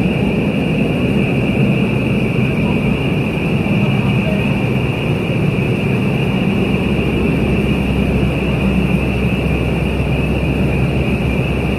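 Building fire alarm sounding a continuous high-pitched tone without a break, over a steady low rumble.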